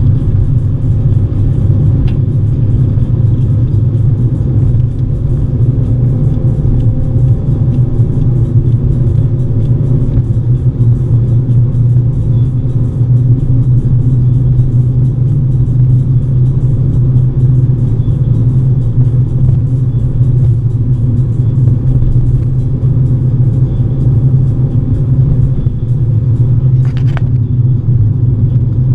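Car interior engine and road noise: a steady low rumble from a car on the move, with a short click near the end.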